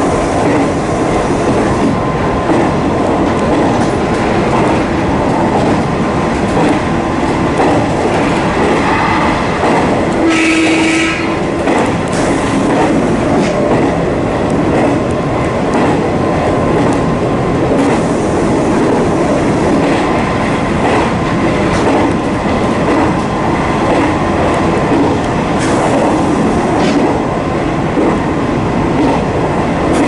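JR 185-series electric multiple unit heard from inside the driver's cab while running at speed: steady, loud motor and wheel-on-rail noise. A short pitched tone lasting about a second sounds about ten seconds in.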